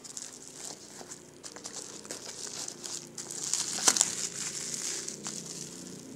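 Plastic bubble wrap and cardboard packaging crinkling and rustling as a parcel is unwrapped by hand. The crinkling is loudest around four seconds in, with one sharp crack.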